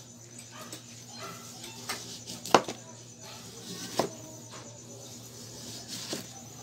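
Kitchen knife paring thick strips of hard skin off an upo (bottle gourd). The blade knocks sharply against the cutting board a few times, loudest about two and a half seconds in.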